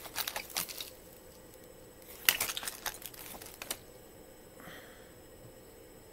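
Handling noise: rustling and small clicks of things being handled close to the microphone, in two short flurries, the second starting about two seconds in, with a faint rustle near the end.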